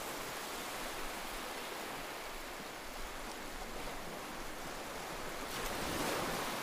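A steady rushing hiss like surf, swelling into a soft whoosh about five and a half seconds in.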